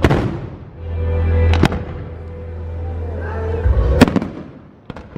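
Fireworks display: aerial shells bursting with sharp bangs, the loudest about four seconds in, over a low rumble.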